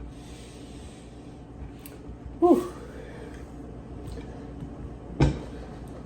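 One short, pitched vocal sound from a man's throat about two and a half seconds in, with a quick bend in pitch. A single sharp click comes about five seconds in.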